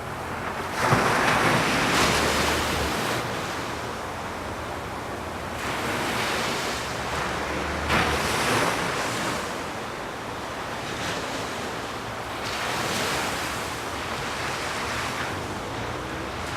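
Ocean surf: waves breaking and washing in, rising and falling in surges every few seconds, with a sharper splash midway.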